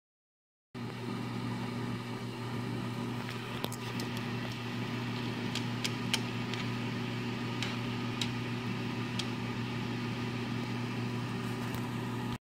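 Water heating and simmering in a frying pan on an electric stove under a steady electrical hum, with a few light clicks of chopsticks against the pan.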